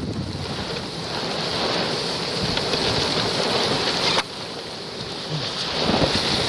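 Thunderstorm microburst outflow: a steady loud hiss of wind-driven rain, with wind buffeting the microphone. It breaks off abruptly about four seconds in and carries on a little quieter.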